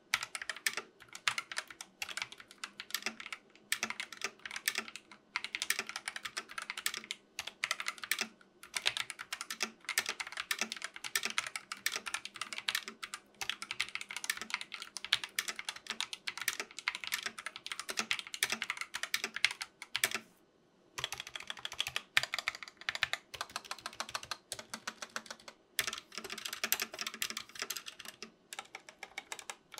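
Continuous fast typing on a GK61 mechanical keyboard with Gateron optical switches: a dense clatter of key presses, with one brief pause about two-thirds of the way in.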